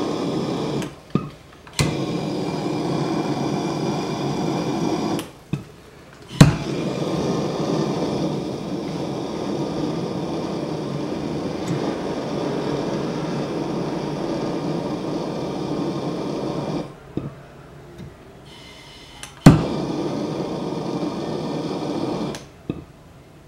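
Bernzomatic TS8000 trigger-start torch burning MAP-Pro gas with a steady rushing hiss while heating a copper fitting to sweat a solder joint. The flame cuts out about a second in, again around five seconds in, and again near seventeen seconds. Each time it comes back with a sharp click, and it stops near the end as the solder is fed in.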